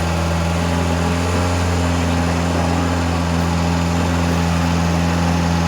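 An engine running steadily at idle, a low unchanging hum with no revving.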